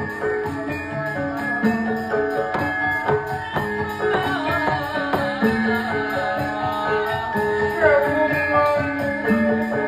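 Sundanese gamelan music of a wayang golek performance: steady pitched notes over a regular metallic jingling beat of about three strokes a second, with a sliding melodic line in the middle.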